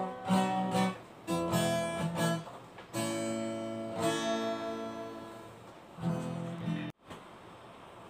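Acoustic guitar being strummed: several chords, each struck and left to ring, with the sound cutting off abruptly near the end.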